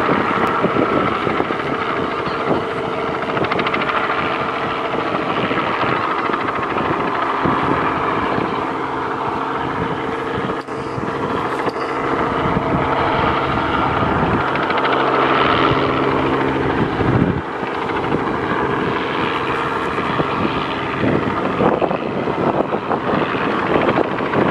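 Robinson R44 helicopter hovering and lifting a sling load: the steady drone of its six-cylinder piston engine and two-blade main rotor, holding an even level throughout.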